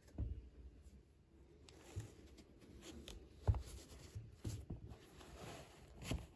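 Hands handling an ASICS Kinsei Blast running shoe: soft rustling and scuffing of the knit upper and laces, with scattered light knocks, the sharpest about three and a half seconds in.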